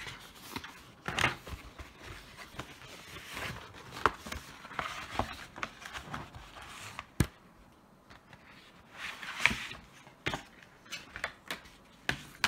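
Cardboard box and packaging of a toy LCD writing tablet being handled and opened: rustling and scraping with a few sharp knocks, the sharpest about seven seconds in.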